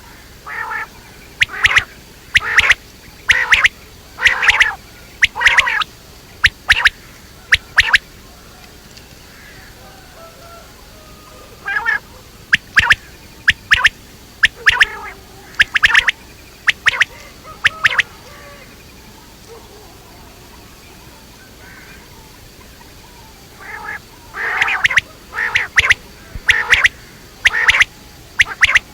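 Quail (batair) calling in three bouts of short, sharp repeated notes, roughly one a second, with pauses of a few seconds between the bouts.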